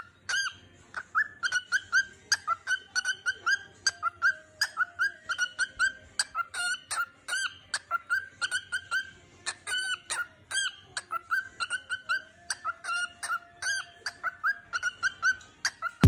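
Cockatiel singing: a long run of short, arching chirps repeated about three times a second.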